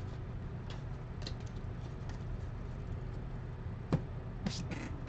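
Handling of a trading-card hobby box being opened: light scattered clicks and short rustles of cardboard and wrapper, with one sharper click about four seconds in. A steady low hum runs underneath.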